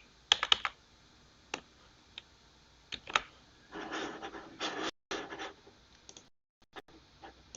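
A few scattered clicks and taps of a computer keyboard and mouse, with a softer rustle in the middle.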